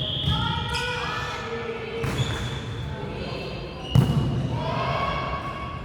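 Basketballs bouncing on a gym floor during a practice, with short high squeaks and voices echoing in the hall. One loud bounce about four seconds in.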